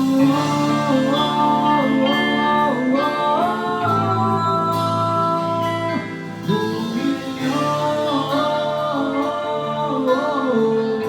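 A live band playing a song: a lead melody moves over steady guitar chords and bass, with a short drop in loudness about six seconds in.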